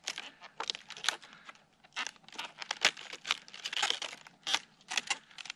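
A knife cutting up firm, crisp produce: an irregular string of sharp crunches and snaps, several a second.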